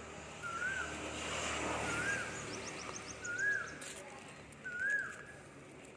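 A bird repeating a short whistled note that rises and falls, four times at about one every one and a half seconds. A brief run of fast, high ticks comes about halfway through, over a swell of outdoor noise.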